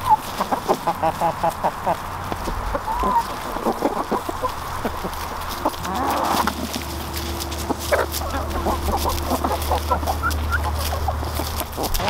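A flock of Buff Orpington hens clucking while feeding, in quick runs of short clucks. A low steady hum runs underneath from about halfway through.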